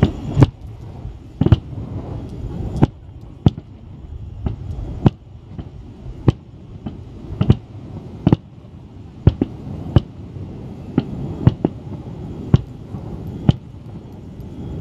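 Fireworks shells bursting in an irregular string of sharp bangs, about one a second, over a continuous low rumble.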